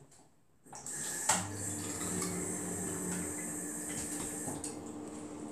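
Bathroom tap turned on less than a second in and left running steadily into the sink, with a single sharp clack shortly after it starts.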